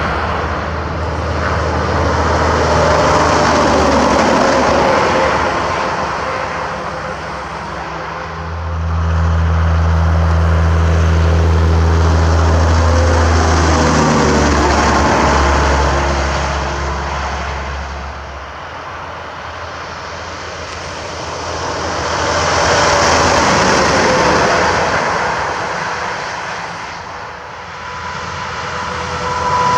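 Heavy trucks passing on a highway one after another, their tyre and engine noise swelling and fading in three or four waves. A steady low engine drone is loudest about ten to fifteen seconds in.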